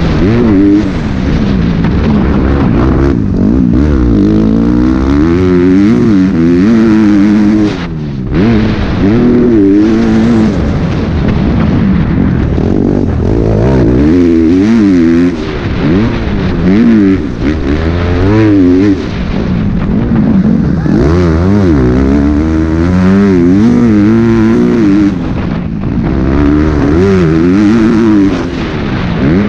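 MX2 motocross bike engine heard from the rider's helmet, revving up and down over and over as the throttle opens and closes through the lap, with a few short drops where the throttle is shut, the clearest about eight seconds in.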